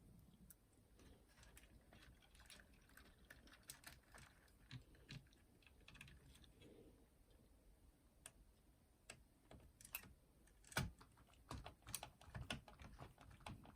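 Faint scattered clicks and taps of small tools and parts being handled during work on a cassette boombox, growing busier in the second half, with one louder knock about three-quarters of the way through.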